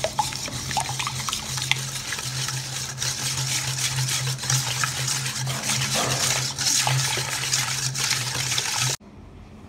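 Wire whisk beating a runny batter of eggs, yogurt and melted margarine in a stainless steel bowl: steady wet sloshing with the wires clicking and scraping against the bowl. It stops suddenly about nine seconds in.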